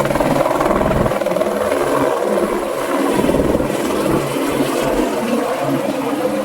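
Helicopter running, its rotor beating in a fast, steady chop under the engine noise.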